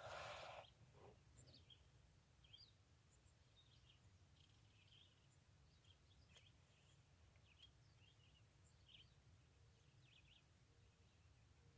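Near silence with faint, scattered bird chirps throughout. A brief rustle at the very start.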